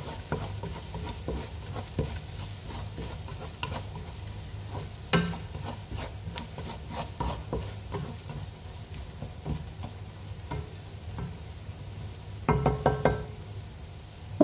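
Onions and ground spices frying in oil in a metal pot while a utensil stirs and scrapes against the pot's sides and bottom. There is a sharp knock about five seconds in and a denser clatter near the end.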